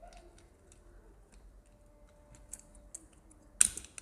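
Light metallic clicks and taps as a TVS Metro engine's cylinder head is fitted over the timing chain onto the cylinder. One louder metal clunk comes near the end as the head is set down on the block.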